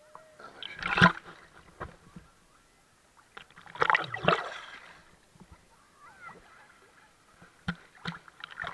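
Sea water sloshing and splashing around a camera bobbing at the surface, in two louder bursts about a second in and around four seconds in, with faint water sounds between.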